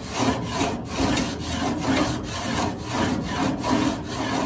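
Wooden grill scraper with burned-in grooves being pushed back and forth along metal grill grate bars, scraping off cooked-on residue in rhythmic strokes, about two a second.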